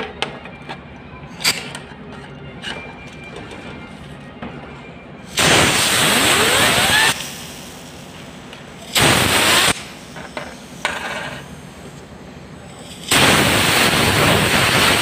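Compressed-air blow gun blasting air at a ball bearing to spin it: three loud hissing blasts, the first about five seconds in and under two seconds long, a short one near nine seconds and a longer one near the end. During the first blast the bearing gives a whine rising in pitch as it spins up. Before the blasts there are light metal clicks as the bearing is handled.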